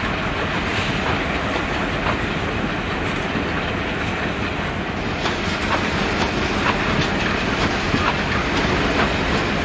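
Diesel locomotive and track inspection car running along the track: a steady rumble with wheels clacking over the rail joints, the clacks coming thicker from about halfway through.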